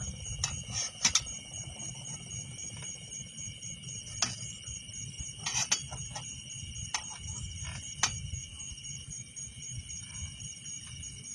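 Night insect chorus of crickets, a steady high-pitched trilling held at several pitches, with a handful of short sharp clicks and knocks scattered through it.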